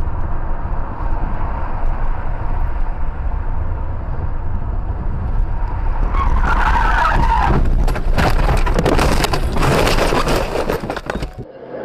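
Car on the move with a heavy low road rumble. About six seconds in, the tyres squeal in a skid, followed by a dense clatter of knocks and scraping for several seconds before the sound cuts off.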